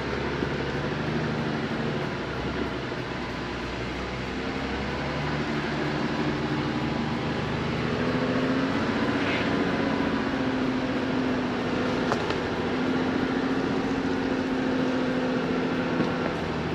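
Jeep Rubicon's engine running steadily at low speed, a continuous drone whose note rises slightly and grows a little louder about seven or eight seconds in.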